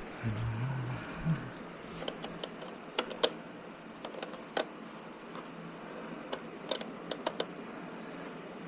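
Scattered light clicks and taps of parts and tools being handled during motorcycle bodywork, with a brief low hum near the start.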